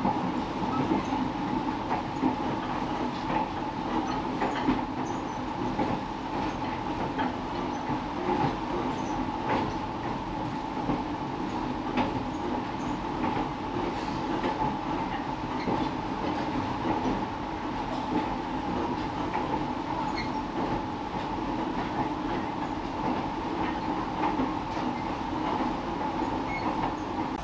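Running noise inside a moving passenger rail car: a steady rumble and hum from the wheels and track, with frequent short clicks and knocks scattered throughout.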